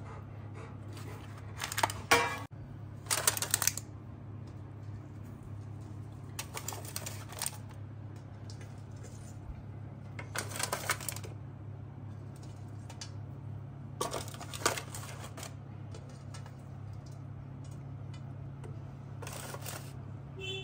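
Aluminium foil takeaway containers being handled as parathas are packed into them: about six short crinkly metallic rustles a few seconds apart, over a low steady hum.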